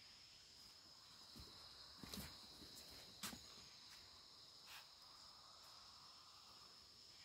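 Faint, steady high-pitched drone of insects in tropical swamp forest, joined by a fainter, lower insect tone from about five seconds in. A few soft knocks, likely footsteps, come about two and three seconds in.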